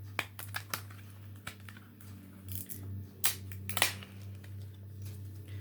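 Plastic CD jewel case being handled: scattered sharp clicks and taps with light rustling, the loudest a little after three seconds and near four seconds, over a low steady hum.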